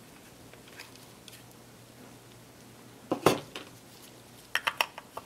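Small sharp clicks and taps of plastic as the front cover of a Canon EOS 60D camera body is worked loose and lifted off. A few clicks come about three seconds in, and a quick run of about six light clicks comes near the end.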